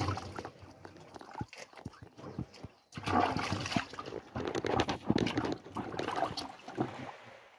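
Water sloshing and splashing in a plastic bucket as peeled cassava roots are scrubbed and turned by hand, with irregular knocks and rubbing. It is quieter in the first part and busier from a few seconds in.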